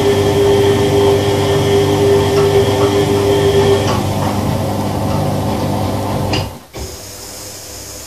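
Old front-loading washing machine running, its motor and turning drum making a loud steady hum with a whine. The sound cuts off suddenly about six and a half seconds in, leaving a quieter steady hiss.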